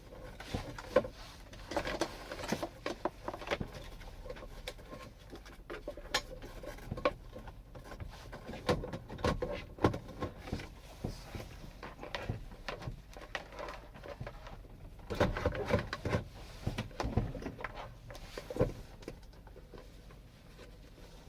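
Irregular clicks, knocks and rustling of truck dashboard parts and wiring being handled and fitted back into place, with clusters of sharper knocks a couple of times.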